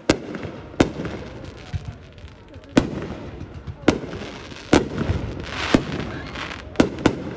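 Fireworks bursting: about eight sharp bangs at uneven intervals, two of them close together near the end, over a continuous noisy wash.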